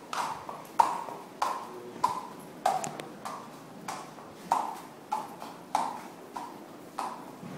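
Horse's hooves striking a concrete stable aisle at a walk: an even clip-clop of sharp footfalls, each with a short ring, about one every 0.6 seconds.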